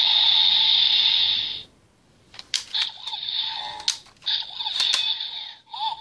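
Kamen Rider Build Driver toy belt playing an electronic sound effect through its small speaker, which cuts off about a second and a half in. A few sharp plastic clicks and short electronic chirps follow as a Full Bottle is pulled from its slot.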